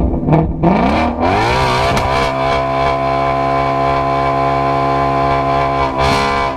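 Ford Shelby GT350's 5.2-litre flat-plane-crank V8 exhaust: a couple of quick throttle blips, then the revs climb and are held steady for about four seconds before being let go near the end.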